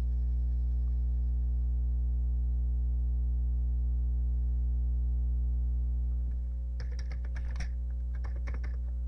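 Steady low electrical hum, then, about two-thirds of the way in, two quick runs of keystrokes on a Commodore 64 keyboard.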